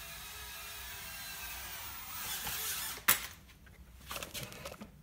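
Mini quadcopter's tiny motors and propellers whining steadily, swelling louder, then cut off by a sharp knock about three seconds in, followed by a few lighter knocks.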